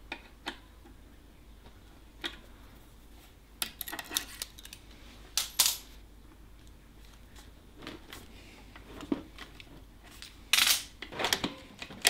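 Irregular metallic clicks and clinks from working a road bike's rim-brake caliper with a Park Tool BT-2 fourth hand cable puller: the tool released and taken off, and the brake squeezed by hand. There are louder clacks about five and a half and ten and a half seconds in.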